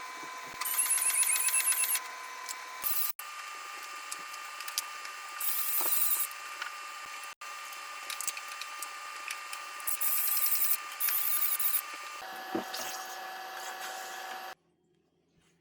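A small power tool running, with a steady hum and short spells of fast, high-pitched buzzing that come three times. The sound breaks off abruptly several times.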